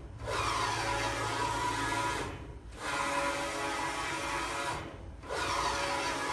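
Digital textile printer's printhead carriage sweeping back and forth: a steady motor whine with hiss during each pass, cutting out briefly at each turnaround about every two and a half seconds.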